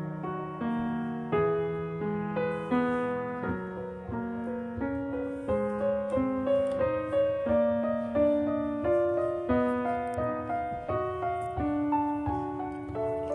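Background piano music: a melody of single notes struck one after another, each ringing and dying away.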